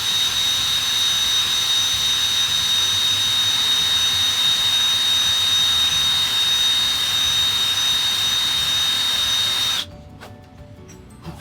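Electric drill running steadily in reverse with a high, even whine over a sanding hiss as it spins a rocker-arm part against 320-grit sandpaper. It cuts off sharply about a second and a half before the end.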